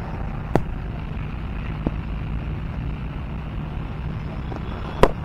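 Steady low outdoor rumble with two sharp knocks, a light one about half a second in and a louder one near the end.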